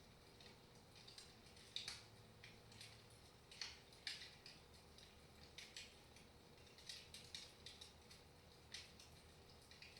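Wood fire in a fireplace crackling softly: irregular small pops and snaps, the sharpest about two seconds in and again around four seconds.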